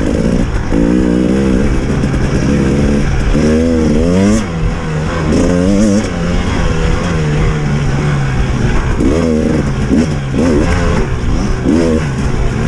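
Dirt bike engine ridden off-road, revving up and down over and over as the throttle is opened and closed, its pitch climbing and falling in short sweeps.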